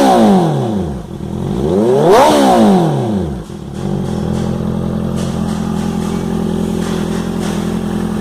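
Honda CB 650F inline-four through an aftermarket sport exhaust, with a loud rumble: the revs fall away from a held rev, then one quick blip rises and falls about two seconds in. From about four seconds it settles to a steady idle.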